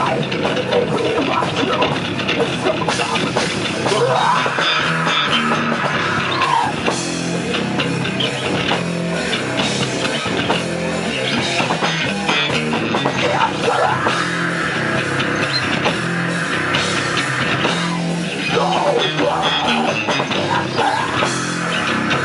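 Heavy metal band playing live: distorted electric guitars and a drum kit, with a high line that slides up and holds three times.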